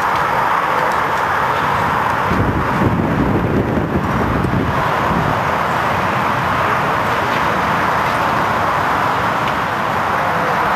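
Steady rushing outdoor background noise, with a low rumble added for a couple of seconds a few seconds in.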